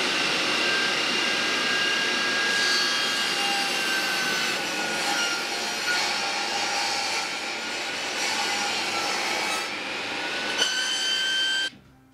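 Makita table saw cutting a white wooden panel board: steady sawing noise with a thin whine over it that drops slowly in pitch and rises again near the end. The sound cuts off suddenly shortly before the end.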